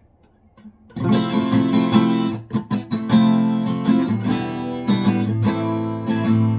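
Acoustic guitar strumming chords, starting about a second in, with a few brief choppy breaks between strokes shortly after.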